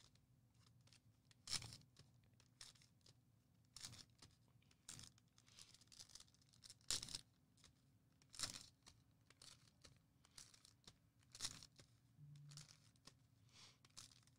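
Faint, irregular crinkling and tearing of plastic and foil trading-card packaging being handled and opened, short crackles about once or twice a second.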